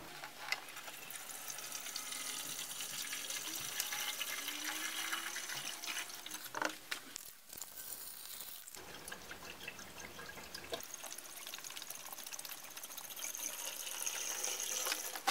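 Liquid poured into a plastic windscreen washer reservoir, a steady splashing trickle as screen wash goes in from a jug. About seven seconds in the pouring stops for a second or so, then it starts again from a second bottle.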